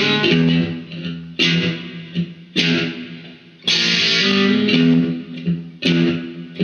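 Electric guitar playing a slow blues figure between sung lines: strummed chords struck every second or so, each ringing and fading before the next.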